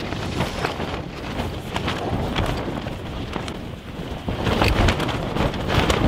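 Gale-force wind gusting against a small tent, the tent fabric shaking, flapping and crackling, with wind buffeting the microphone; a stronger gust comes about four and a half seconds in.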